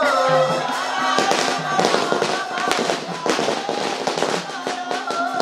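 Music with a melody over a repeating bass line, joined about a second in by rapid, irregular crackling from a string of firecrackers going off.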